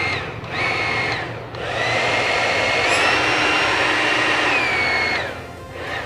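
Amara AM 9900 hair dryer's fan motor whining as it is switched on and off: two short runs in the first second and a half, then a longer run that steps up in pitch about three seconds in and cuts off a little after five seconds. The motor, once dead, runs again after being cleaned of clogged hair.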